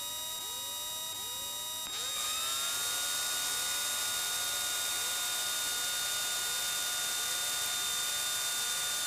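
Cockpit engine drone of a Piper Arrow. About two seconds in, a steady rising whine and louder air noise join it as the landing gear's hydraulic pump runs to lower the retractable gear.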